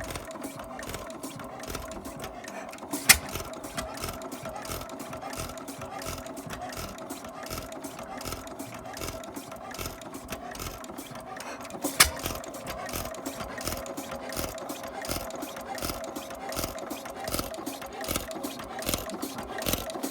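Gardner 1AF stationary engine running with a fast, even mechanical clatter, broken by two sharp, loud cracks about three and twelve seconds in.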